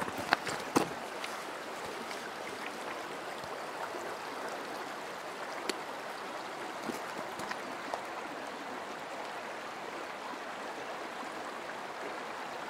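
Small stream (burn) running: a steady rush of water, with a few sharp clicks in the first second.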